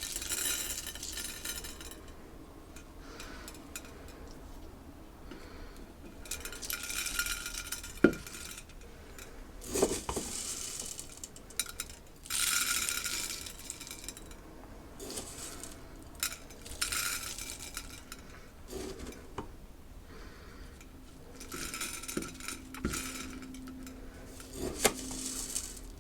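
A spoon scooping and sprinkling loose birdseed, the seeds rattling and pattering in short bursts of about a second each. Now and then a sharp clink comes from the spoon striking its container.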